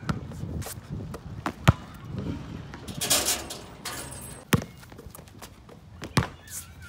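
Basketball dribbled and bouncing on an outdoor court with a few sharp bangs. About three seconds in there is a brief metallic jangle as the ball drops through a chain net.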